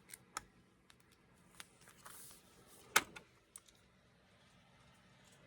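Plastic card binder pages being handled and turned: scattered light clicks and taps with a brief soft rustle about two seconds in and a sharper click about three seconds in.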